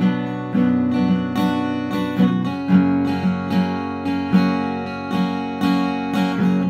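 Acoustic guitar played solo, chords ringing with a regular rhythm of strummed or picked attacks and a few chord changes.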